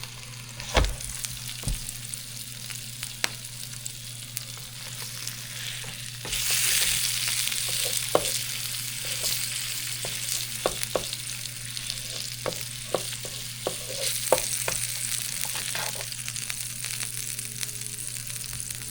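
Food sizzling on a George Foreman electric contact grill, a steady hissing that grows louder about six seconds in, with many light clicks and taps scattered through.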